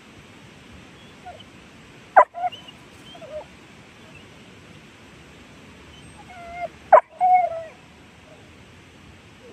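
An animal's cries close to the microphone: two short, sharp yelps about five seconds apart, each with brief wavering whines around it.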